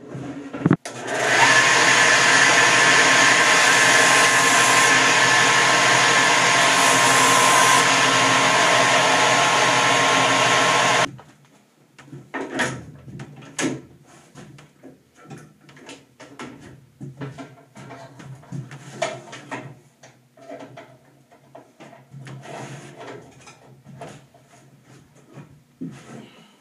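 Bench-top belt sander running steadily for about ten seconds, then stopping suddenly. After it, scattered light knocks and clicks of wood pieces and clamps being handled and the sander being moved.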